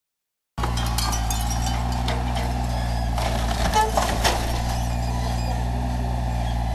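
Heavy diesel machinery running steadily at demolition work, its engine note constant, with a few knocks and crunches about three to four seconds in. The sound cuts in abruptly just after the start.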